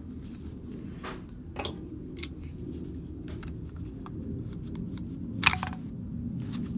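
Car door handle parts and latch rod clicking and rattling as they are handled, with a few sharp clicks, the loudest about five and a half seconds in, over a steady low background rumble.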